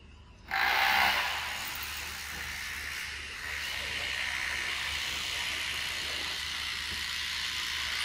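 Cicada chorus: a high, steady, hissing drone that switches on abruptly about half a second in and holds level.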